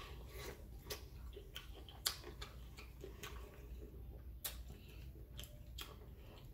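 Close-up eating sounds from chewing seafood: a string of irregular sharp mouth clicks and smacks over a low hum.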